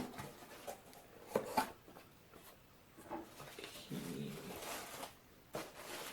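A cardboard box being opened by hand: flaps and packing rustling, with scattered soft knocks and a sharp click near the end.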